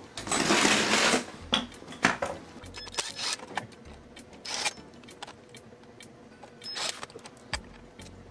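Parts of a motorcycle fender eliminator bracket being handled and taken apart by hand: a scraping rustle about half a second in, then scattered sharp clicks and knocks of plastic and metal.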